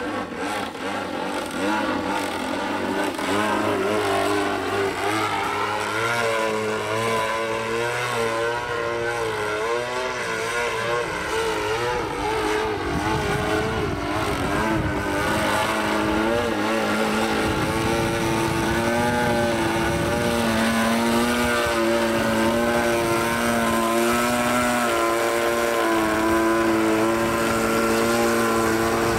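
Gasoline-engined RC aerobatic plane's engine and propeller. The engine note swings up and down in pitch through the first half of the manoeuvres, then holds a steadier drone in the second half as the plane hangs nose-up in a hover.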